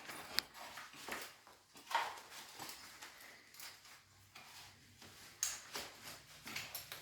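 Faint, scattered clicks and knocks at irregular intervals, from drywall work being done with hand tools and equipment.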